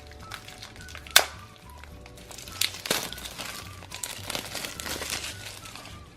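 Plastic candy packaging crinkling as it is handled, with sharp clicks about a second in and again near three seconds, over soft background music.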